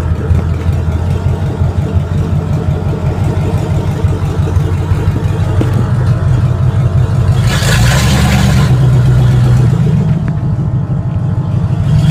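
1955 Chevrolet panel truck's engine running loud through open headers, a steady deep rumble heard from inside the bare-metal cab. A burst of hiss comes in about seven and a half seconds in and again near the end.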